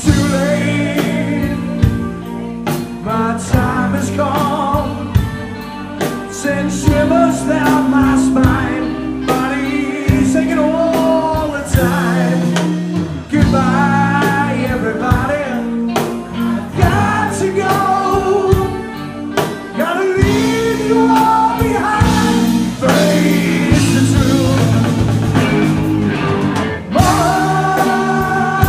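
A live band plays a song: a singer's voice over drums and sustained bass and instrument notes, with a steady beat.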